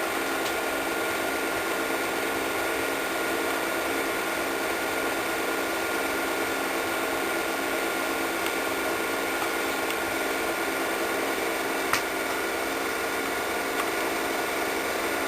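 8mm film projector running with a steady mechanical whir and hum, with a single sharp click about twelve seconds in.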